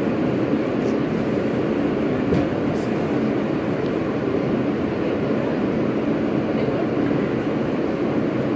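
Steady rumble of an Alstom R160A New York City subway train on the track, heard from inside the car, with a few faint light ticks over it.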